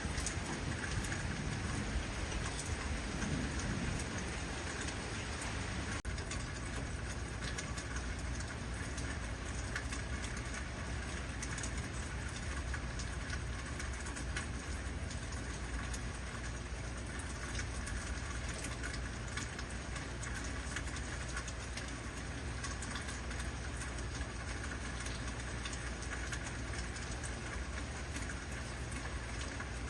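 Heavy rain falling steadily, with a low rumble underneath and a deeper rumble dying away over the first few seconds.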